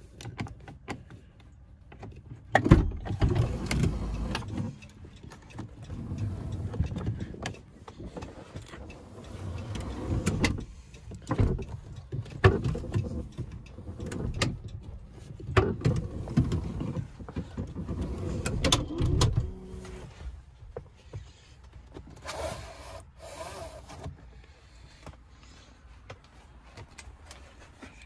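A 2014 Dodge Grand Caravan's sliding-door power window motor running in several spells, mixed with clicks and knocks from the door panel and its switch being handled.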